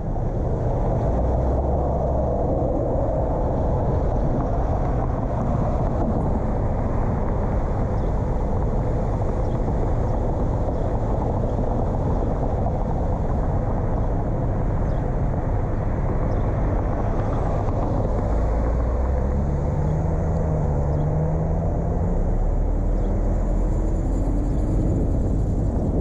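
Car driving: steady road and engine noise with a low rumble, and a short hum that rises in pitch near the end.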